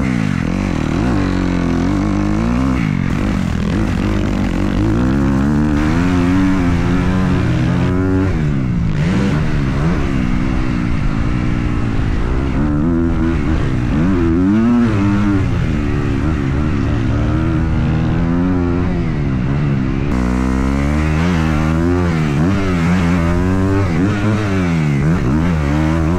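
Dirt bike engine ridden hard, its pitch climbing under throttle and dropping at each shift or roll-off, again and again.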